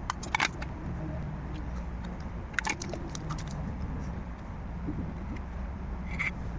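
Light clicks and taps of small repair tools against a phone's parts, a few at a time, over a steady low hum.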